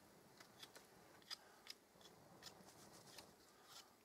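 Faint, sparse crackles and clicks of twigs burning in a small perforated metal twig stove, the fire just lit and slow to catch.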